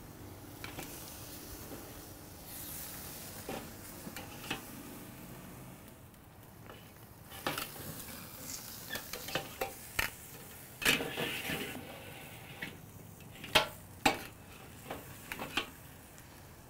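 Beef strip loin roast sizzling as it sears over direct charcoal heat on a kettle grill's grate. A run of sharp clicks and clinks sets in about seven seconds in, the loudest two near the end.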